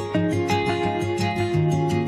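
Background music played on guitar, with notes plucked in a steady run.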